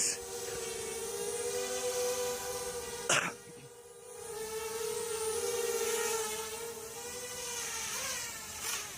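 Quadcopter's electric motors and propellers buzzing in flight, with a steady pitch that wavers slightly. A sharp click comes about three seconds in, after which the buzz briefly fades and then grows louder again.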